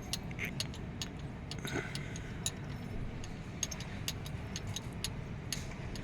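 Scattered light metallic clicks and clinks of hand tools and engine parts being handled during engine work, over a steady low rumble.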